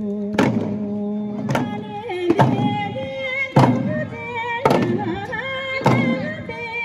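Tibetan lingdro dance music: a melody over hand-held frame drums struck with curved sticks, six even beats about once a second.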